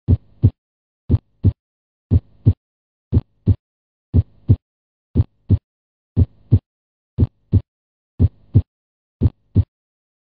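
Recorded heartbeat: paired lub-dub sounds, the first and second heart sounds, repeating steadily about once a second for ten beats.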